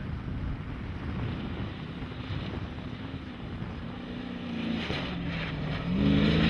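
Wind buffeting the microphone, then an off-road desert race truck's engine approaching at high revs, growing much louder near the end.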